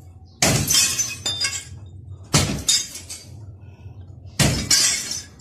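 Glass smashing and shattering: three loud crashes about two seconds apart, each followed by a tinkling spill of breaking glass.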